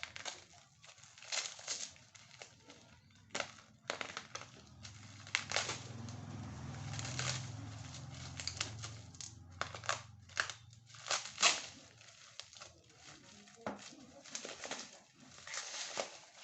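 Tightly wrapped packaging being crinkled and pulled open by hand, in irregular crackling rustles. A low hum runs underneath for a few seconds in the middle.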